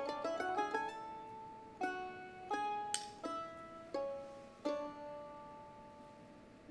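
Background music: a light melody of single notes that start sharply and ring away, a few a second, thinning out and growing quieter near the end.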